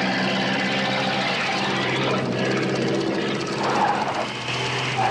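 Car engine running steadily as the car drives off.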